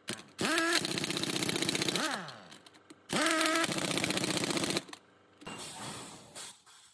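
Large impact wrench run twice on wheel-hub cover bolts, each run about a second and a half: a rapid hammering rattle over a whine that rises as the tool spins up and falls away as it winds down.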